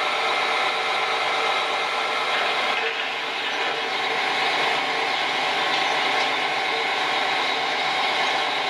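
Mobile crane's diesel engine running steadily under load as it lowers a turntable span, a continuous rasping mechanical noise with faint steady whines.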